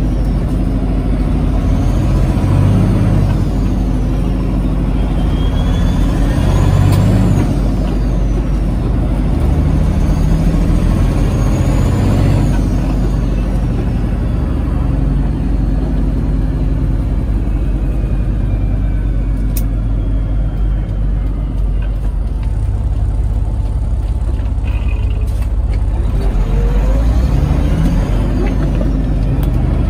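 1997 Peterbilt 379's diesel engine heard from inside the cab while the driver shifts through a 15-speed manual transmission. The revs rise and fall with each gear change, several times in the first half, steadier in the middle, and climbing again near the end.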